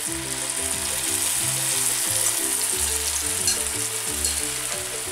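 Sliced champignon and porcini mushrooms sizzling in butter in a frying pan as the porcini soaking water is strained into it, with soft background music underneath.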